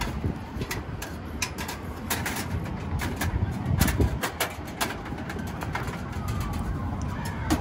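Scattered clicks and light knocks of camp cookware and a camp stove being handled, over a steady low rumble. A siren's falling tone comes in about six seconds in.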